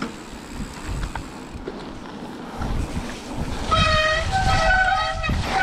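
Mountain bike tyres rumbling over rough dirt trail, with wind on the microphone; about four seconds in, disc brakes squeal with a steady high tone that jumps up in pitch once.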